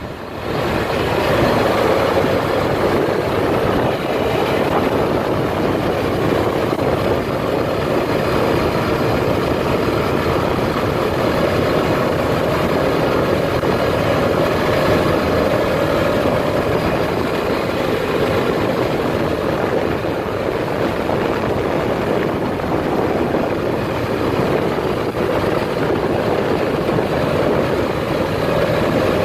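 Side-by-side UTV running steadily on the move: a continuous engine drone mixed with dense rumble and noise.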